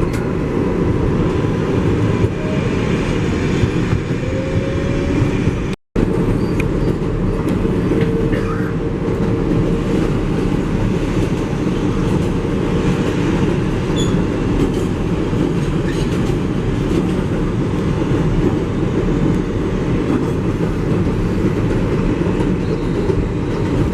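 R188 subway train of the 7 line running between stations, heard from inside the car: a steady loud rumble of wheels on rail and car noise. The sound cuts out for a split second about six seconds in.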